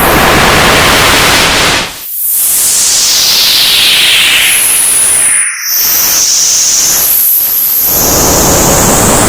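Old analogue television static: a loud, even hiss of white noise that briefly drops out about two seconds in and again past the middle, with high whistling tones sliding above it.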